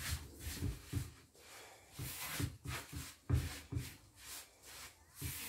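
Plastic-gloved hands rubbing semolina and flour between the palms in a large bowl to work the oil into the grains, giving a soft, gritty rubbing in a string of short, irregular strokes.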